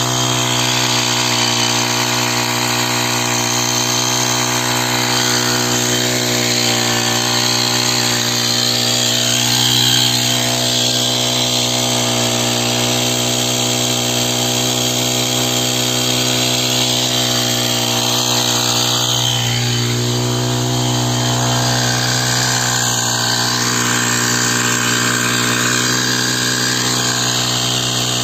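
Engine of a power sprayer running steadily at a constant speed, a continuous drone that holds one pitch throughout.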